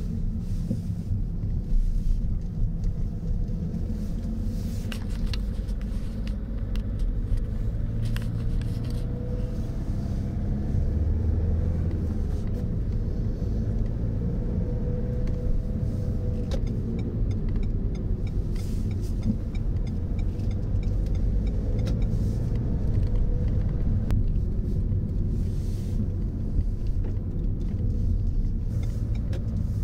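Steady low rumble of tyre and engine noise inside the cabin of a moving car.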